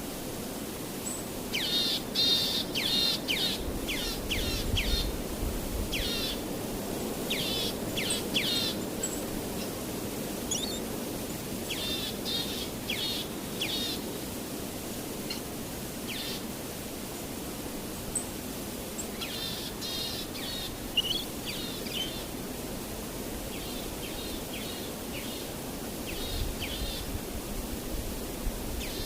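Small birds chirping: quick runs of short, high chirps in clusters, with pauses between them, over a steady background noise.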